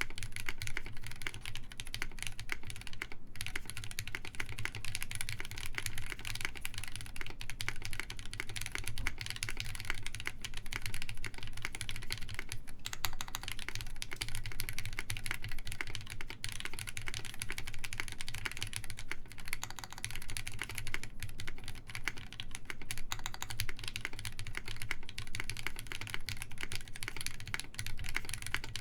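Continuous typing on a mechanical keyboard with lubed SP Star Meteor White linear switches, GMK keycaps and an FR4 plate with no foam: a fast, steady stream of key clacks with brief pauses.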